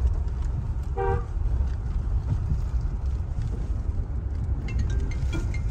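Steady low rumble of a Mahindra Scorpio N driving over a rough, broken road, heard inside the cabin. About a second in there is one short horn toot.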